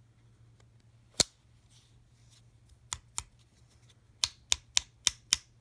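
Sharp clicks from an Old Timer lockback pocket knife being handled: one loud click about a second in, two more near the middle, then five quick clicks, about four a second, near the end.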